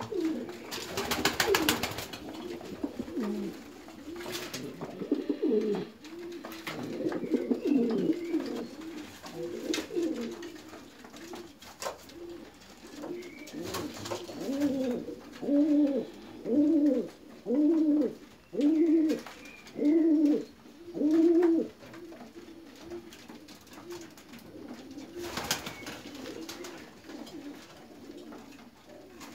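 Domestic pigeons cooing, with softer overlapping coos throughout and, in the middle, a run of about seven loud, regular coos roughly one a second. Brief rustling bursts come near the start and again near the end.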